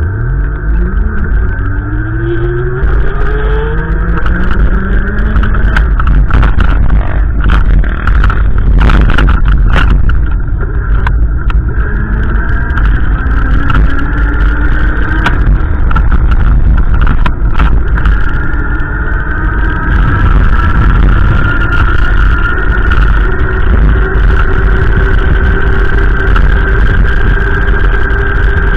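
A motor vehicle accelerating, its engine pitch rising over the first few seconds and rising again partway through, over a heavy low rumble.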